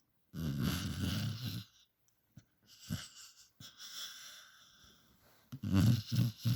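A sleeping puppy snoring like a person: two loud snores about five seconds apart, with softer wheezy breaths between them.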